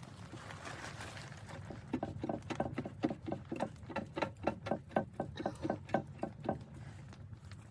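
Rhythmic crunching squeaks, about four a second, starting about two seconds in and stopping near the end, typical of footsteps in very cold, squeaky snow.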